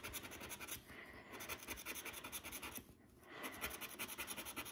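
Plastic scratcher tool scraping the silver coating off a scratch card in rapid back-and-forth strokes, with a short pause about three seconds in.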